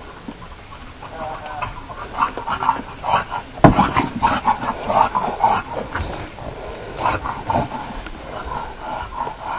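Dogs making many short, high-pitched calls in quick runs, with one sharp knock about three and a half seconds in.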